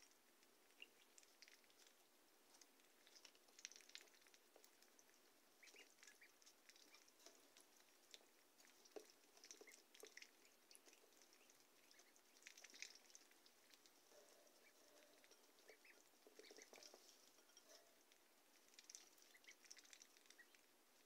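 One-week-old Pekin, Rouen and Swedish Black ducklings peeping faintly off and on in short chirps, with small clicks from their bills at the feeder and waterer.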